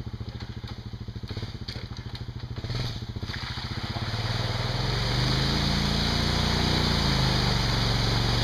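ATV engine running at a low, even putter, then revving up and getting louder about four seconds in as the quad drives into a deep mud hole. Muddy water splashes and churns around the tyres.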